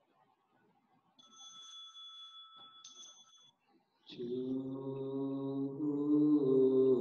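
A small bell is struck twice, each strike ringing in clear high tones. About four seconds in, a third strike sounds as a low male voice begins a slow, drawn-out Buddhist chant, holding each note and stepping in pitch.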